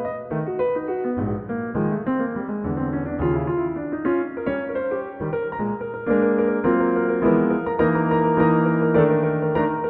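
Solo jazz piano improvisation rendered by the Pianoteq modelled piano from a neural-net note transcription: a busy line of quick notes over lower bass notes, growing louder and fuller with chords about six seconds in.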